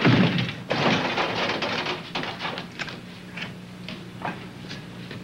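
A sheet-metal locker door is unlatched and swung open, with a few sharp clicks and knocks from the latch and door. It opens with a loud rush of noise that dies away over the first two seconds.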